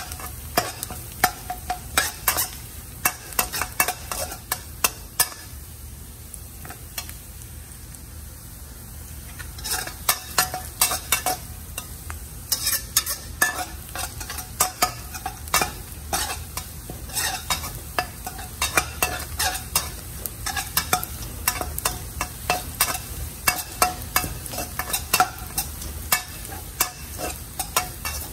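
Metal spatula scraping and tapping against a wok in quick, irregular strokes as minced garlic, ginger, shallot and dried chilies sizzle in hot oil, being sautéed until browned. The strokes ease off for a few seconds about a quarter of the way in, then pick up again.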